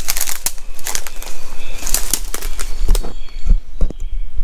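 Handling noise from a handheld camera being moved along a rough concrete wall and pushed in through a window opening: a quick run of rustling, scraping crackles for about three seconds, then a few separate knocks, over a steady low rumble.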